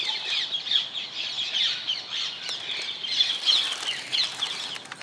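A flock of rose-ringed parakeets calling: many shrill, overlapping screeches and chirps.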